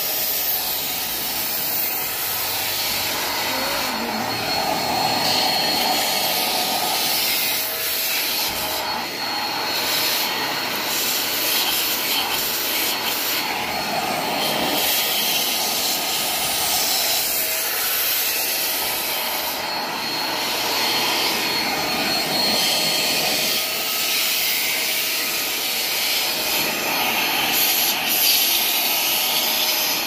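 Deerma handheld vacuum cleaner running steadily, its motor's faint high whine over the rush of sucked air as the narrow nozzle is worked along a sliding-door track.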